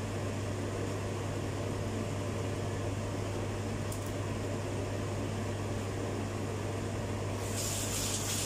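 Steady low mechanical hum of a running kitchen appliance or fan. Near the end, water from the kitchen tap starts running into the sink as hands are rinsed under it.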